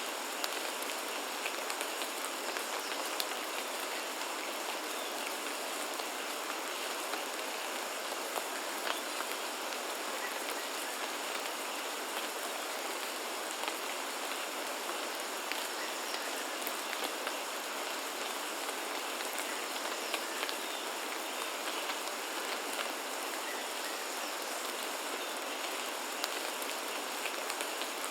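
Steady rain falling, a constant hiss with individual drops ticking sharply here and there.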